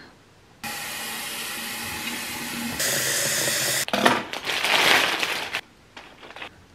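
Water running from a kitchen tap into a glass vase for about three seconds, brightening about two seconds in as the vase fills. It is followed by a louder, uneven rush of noise lasting under two seconds.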